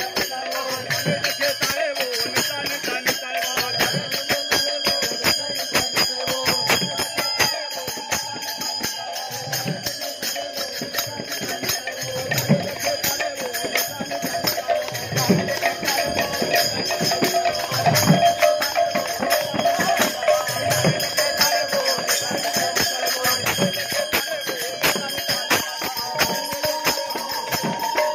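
Devotional kirtan music: small hand cymbals (kartals) clash in a constant fast jingle over khol drums beating every couple of seconds, with some voices chanting along.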